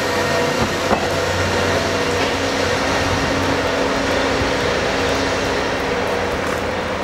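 KiHa 40-series diesel railcar train pulling out, its diesel engine running with a steady low hum, and one sharp click about a second in.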